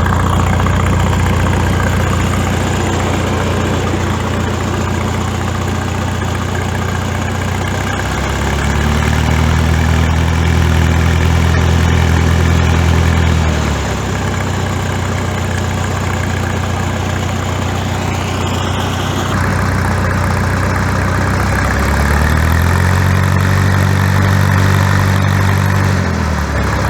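Farmall tractor engine idling with a deep exhaust note through its restored turned-up exhaust stack. It is revved up twice, once about a third of the way in and again near the end, holding the higher speed for a few seconds each time before dropping back to idle.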